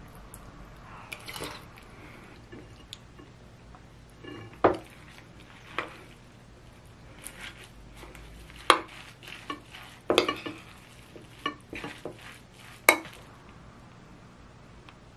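Metal spoon mixing rice, lettuce and egg in a ceramic bowl: soft scraping and stirring broken by a dozen or so sharp clinks of the spoon against the bowl.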